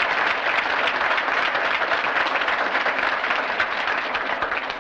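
Audience applauding steadily, a dense patter of many hands clapping, starting to die away near the end.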